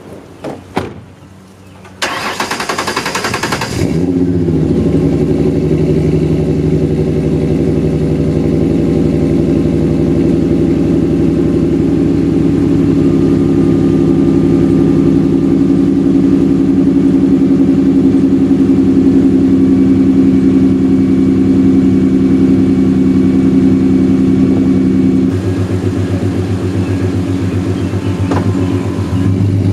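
A car door shuts, then a Ford Mustang's starter cranks for about two seconds before the engine catches and settles into a steady idle. About 25 seconds in, the idle drops lower and quieter, as it does when the fast idle after a start eases off.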